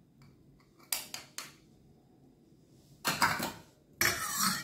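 Metal spoon clinking and scraping against a stainless steel bowl. A few light clicks come about a second in, then two louder clattering scrapes near the end.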